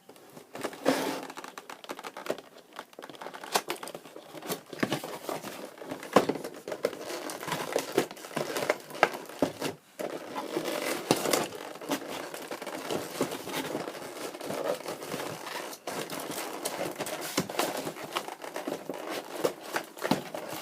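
Cardboard packaging of a die-cast toy being opened by hand: irregular crinkling and rustling with many sharp clicks and scrapes.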